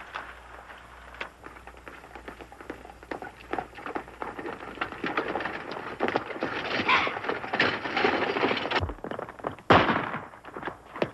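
Horse hoofbeats and the rattle of a stagecoach on a dirt road, a dense clatter that grows louder as it approaches, then a single loud gunshot about ten seconds in.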